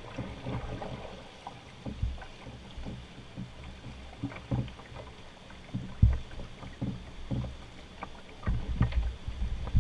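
Rushing river rapids under a poled canoe, with irregular knocks and clunks as the canoe pole strikes the rocky bottom and bumps the hull while the boat is eased slowly downstream. The loudest knock comes about six seconds in, and the knocks come thicker near the end.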